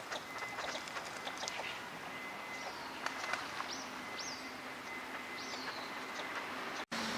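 Small birds calling outdoors: a quick run of short chirps at first, then several high calls that rise and fall. The sound cuts out abruptly near the end.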